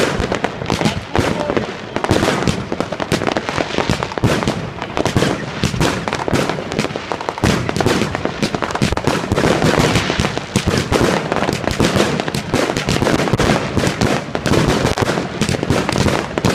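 Fireworks going off in a dense, unbroken barrage of overlapping bangs and crackles.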